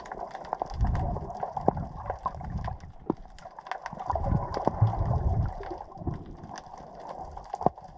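Sea water heard underwater through an action-camera housing as a snorkeler swims: muffled water movement rising and falling in irregular low surges, with many scattered sharp clicks and crackles throughout.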